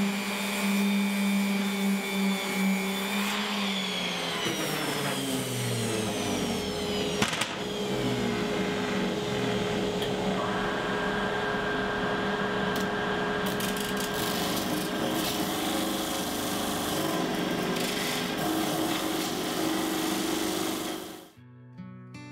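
Random orbit sander running on a walnut board, its pitch sliding down after about three seconds as it winds down. A steady machine hum carries on, and acoustic guitar music takes over near the end.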